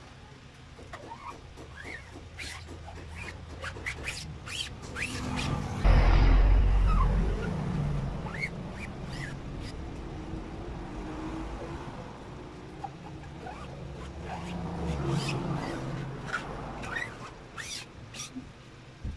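A flat scraper card drawn across a screen-printing mesh to spread photo emulsion, with scratchy scrapes, clicks and small squeaks. A loud low rumble comes in about six seconds in and fades over a couple of seconds.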